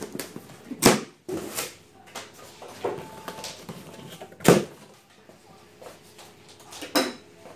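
Plastic packing straps around a cardboard box snapping as they are cut with a knife: sharp snaps about a second in and again midway, with cardboard scraping and handling in between, and another sharp snap near the end.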